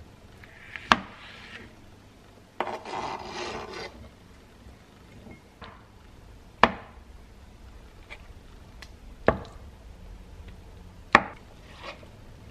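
Chef's knife cutting soft fresh cheese on a plastic cutting board: four sharp knocks of the blade and board, a couple of seconds apart, with about a second of scraping and rustling about three seconds in.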